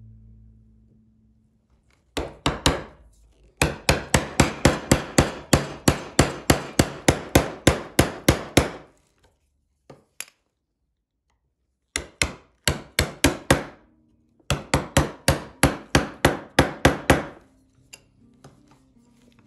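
Woodworking chisel struck in quick runs of blows, about four a second, chopping out a mortise in hardwood. There are four runs with short pauses between them.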